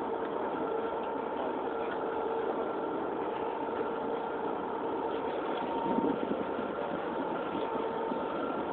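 Boat engine idling steadily: a constant drone with a steady whine over it.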